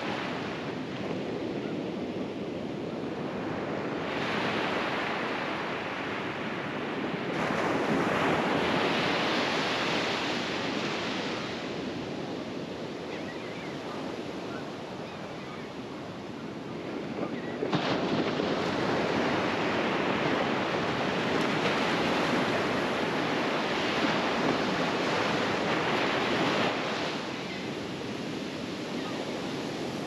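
Small, gentle ocean waves breaking on the beach and washing up the sand. The surf swells louder about 7 seconds in and again, sharply, about 18 seconds in, before easing near the end.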